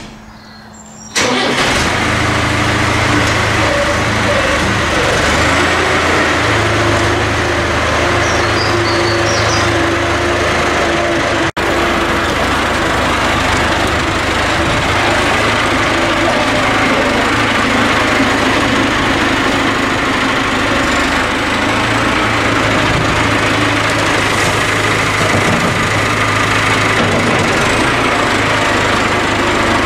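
Farm tractor's diesel engine running steadily as its front loader works. It cuts in abruptly about a second in, with a brief dropout near the middle.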